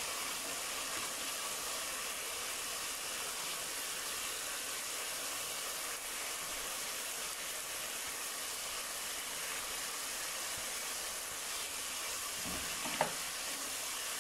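Chana dal (split chickpeas) steadily sizzling in oil and spices in a hot pan, fried down before water is added. A single light knock comes about 13 seconds in.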